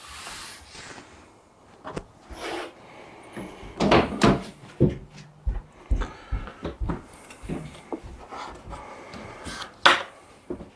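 Irregular clunks, clicks and brief scraping as a folding tonneau cover is shifted and set on a pickup's bed rails, with the loudest knocks about four seconds in and near the end.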